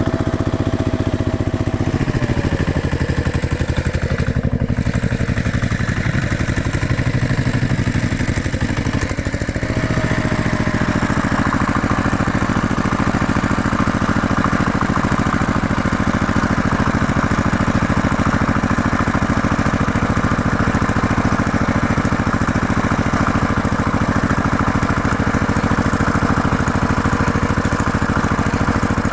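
Heavy construction machine's engine running steadily under load; its note drops about two seconds in and picks back up about ten seconds in, then holds.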